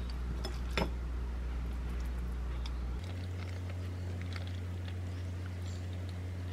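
A single light tap of a wooden spoon on a ceramic bowl about a second in, then soft crinkling and small ticks of plastic wrap as hands fold it around a ball of fried rice and squeeze it, over a steady low room hum.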